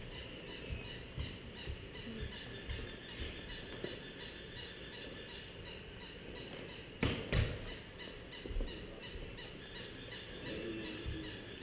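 Quiet room noise with scattered low thumps, and two sharp knocks close together about seven seconds in.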